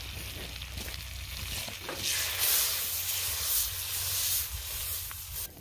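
Melted butter sizzling in a wok, then a louder hissing sizzle from about two seconds in as the excess butter is poured out onto the hot fire; the sound cuts off just before the end.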